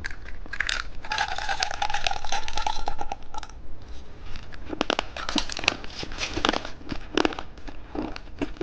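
Plastic candy packaging crinkling and tearing as it is handled and opened, with many sharp crackles and clicks. From about one to three and a half seconds in there is a buzzing rattle that holds a steady pitch.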